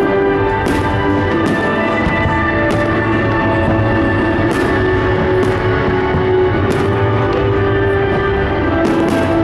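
Loud music for a fireworks display, with held notes throughout. Sharp cracks of firework bursts sound over it at uneven intervals, several times.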